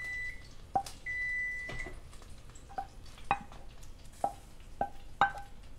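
A utensil knocking and clinking against a pan as a pepper, onion and brown sugar sauce is spooned out, about seven light knocks at uneven intervals, each with a short ring. A thin high tone sounds twice in the first two seconds.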